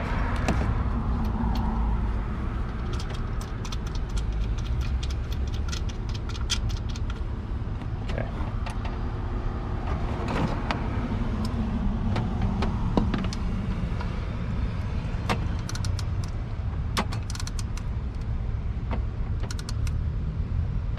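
Scattered light metallic clicks and clinks of hand work at the engine's accessory drive, as the serpentine belt is fitted over the pulleys, over a steady low rumble.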